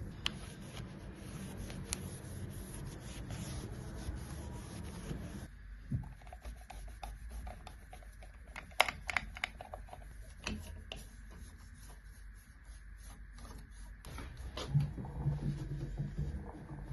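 Hand scrubbing or wiping of a surface, a steady rubbing at first, then quieter with scattered light clicks and knocks, the sharpest about nine seconds in.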